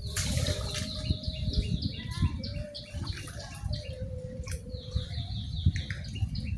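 Birds chirping: a run of short, quick falling chirps, about three a second, with a thinner held note lower down, over a steady low rumble.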